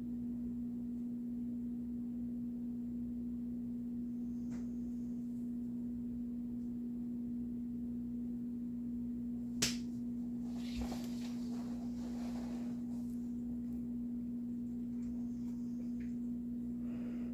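A steady low hum holding one pure tone, with a single sharp click about ten seconds in and a faint scratchy noise for a few seconds after it.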